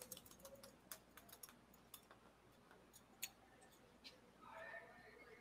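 Near silence with faint scattered clicks, thickest in the first two seconds, one sharper click a little past three seconds, and a faint muffled voice near the end.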